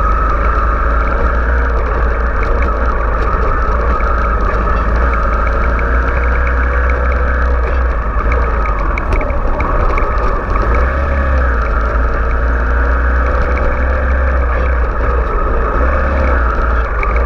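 Kawasaki Ninja 250FI's parallel-twin engine running steadily while riding at walking-to-low speed, its pitch rising and falling gently as the throttle is opened and closed.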